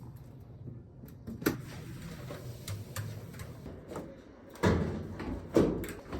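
Irregular knocks and clunks from a clothes dryer, the loudest a little before five seconds in and again shortly after.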